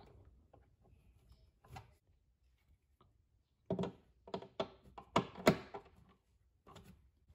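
Hand screwdriver turning cam locks in a particleboard cabinet: mostly quiet at first, then a cluster of short clicks and creaks from about four to six seconds in as the cam locks are tightened.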